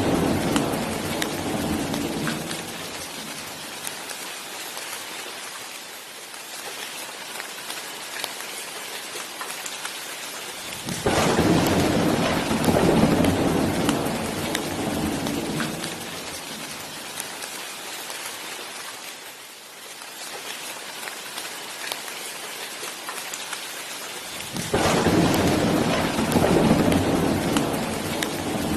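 Steady rain with rolling thunder. One roll is fading out at the start, a second breaks in suddenly about 11 seconds in, and a third about 25 seconds in; each rumbles low and dies away over several seconds.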